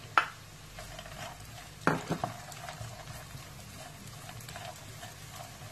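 Sliced onions and golden raisins frying gently in butter in a nonstick pan, a soft steady sizzle, stirred with a wooden spatula. The spatula knocks against the pan a few times, loudest about two seconds in.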